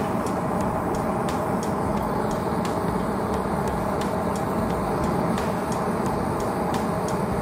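A lit forge burning with a steady rushing noise, flame blowing out of its firebrick mouth while a sword blade heats in it. Faint light ticks recur about three times a second throughout.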